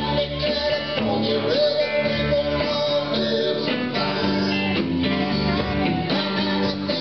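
Live country band playing through a PA, with electric guitars to the fore.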